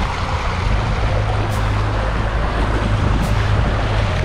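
Sea waves washing against the shoreline rocks, with wind rumbling on the microphone. Faint music with a slow regular beat underneath.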